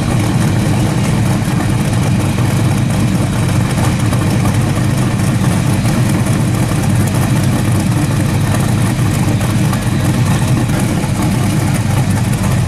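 Street rod coupe's engine idling with a steady low rumble as the car creeps along at walking pace, without revving.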